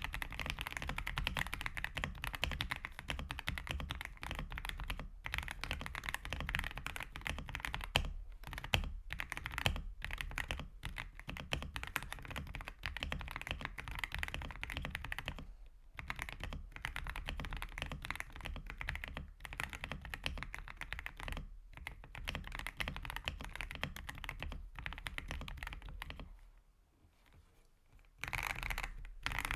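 Fast, continuous typing on an AULA F99 mechanical keyboard fitted with Gateron Oil King linear switches and stock keycaps, the keystrokes running densely together. The typing stops for about two seconds near the end, then starts again.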